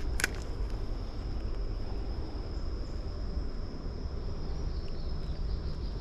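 Steady high-pitched drone of insects, over a low rumble of wind and handling on the microphone, with one brief sharp click a moment after the start.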